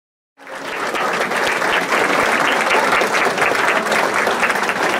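Audience applauding, many hands clapping at once, cutting in abruptly about half a second in and holding steady.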